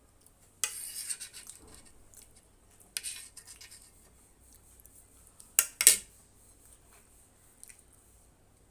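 An eating utensil scraping and clinking against a dish in three short bursts, the last one the loudest.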